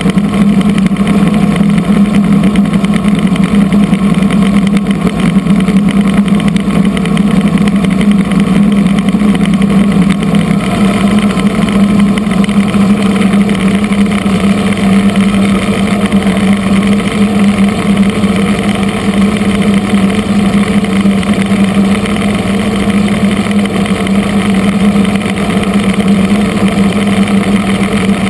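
Kamov Ka-26 helicopter engines running steadily: a loud, even drone with a strong low hum.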